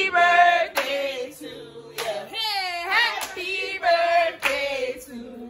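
A group of people singing together, with hand claps keeping time about once a second.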